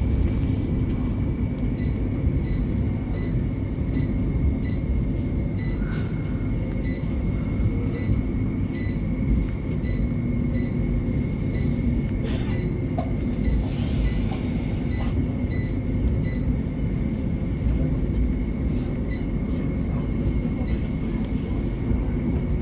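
Interior running noise of a West Midlands Metro CAF Urbos 3 tram under way between stops: a steady low rumble with a constant high whine, and faint regular ticking about twice a second.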